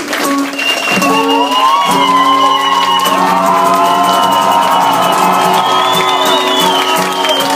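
Live rock band music: guitars and band playing loudly, with held ringing notes and sliding guitar lines, and some crowd shouts over it.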